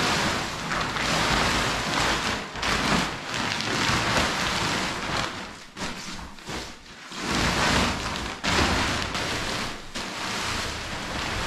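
Thick plastic silage cover sheet crinkling and rustling as it is pulled and handled, in irregular surges with brief pauses.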